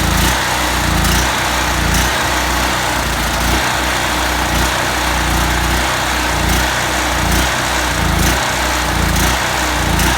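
Harbor Freight Predator generator's small gasoline engine running steadily with the choke off, its carburetor jet freshly cleaned; the engine note swells slightly a little faster than once a second.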